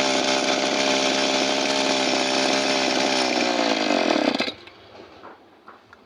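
Small two-stroke engine running steadily at high speed, then slowing down and cutting out about four and a half seconds in, followed by a few faint clicks.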